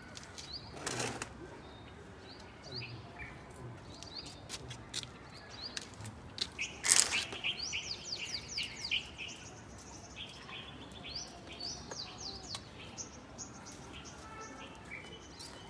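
Small birds chirping: many short, high, sweeping notes, in a quick run around the middle. Two short, louder rushes of noise break in about a second in and at about seven seconds, the second the loudest sound.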